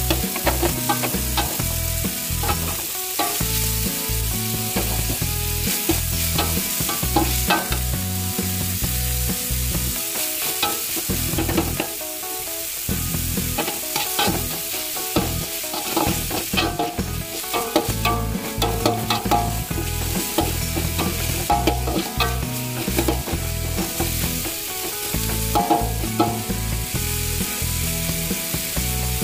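Sliced beef, chillies, shallots and garlic sizzling in hot oil in a metal wok while being stir-fried, the metal spatula scraping and clicking against the pan many times. A steady low rumble runs underneath.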